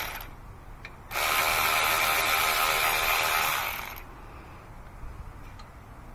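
Cordless electric ratchet running in two bursts while it backs out the 12 mm front brake caliper bolts on a 2016 Ford Fiesta: a run that cuts off right at the start, then after a short pause a second run of about two and a half seconds that winds down and stops. A few faint clicks follow.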